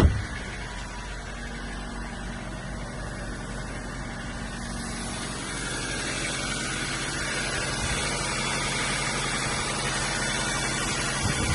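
Toyota Rush's 3SZ-VE 1.5-litre four-cylinder petrol engine idling steadily without knocking, after a short loud noise right at the start; the idle gets a little louder from about five seconds in.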